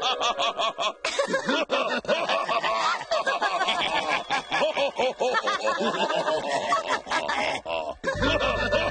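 A cartoon strong man laughing heartily and mockingly, a man's voice in quick repeated bursts of laughter.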